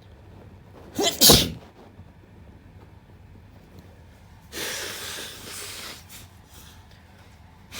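A person sneezes once, loudly, about a second in, with a short sharp intake just before it. About three seconds later comes a longer rush of air through the nose, a nose blow lasting a second and a half, and another blow starts right at the end.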